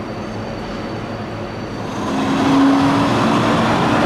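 Steady city street and traffic noise, then about two seconds in a louder tram running noise with a low steady hum as a Siemens Combino D2-class tram approaches along the street.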